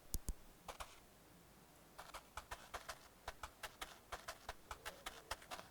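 Light, quick clicking steps, a trotting sound effect for a small character on the move. A few scattered clicks come first, then a steady run of about four clicks a second begins about two seconds in.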